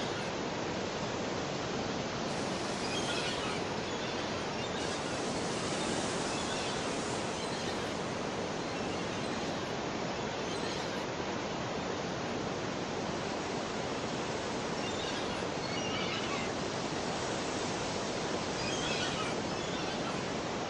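Steady outdoor ambience: an even rushing noise with faint, short high chirps every few seconds.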